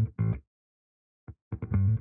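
Background music: short guitar riffs in bursts separated by dead silence, one at the start and another from about one and a half seconds in.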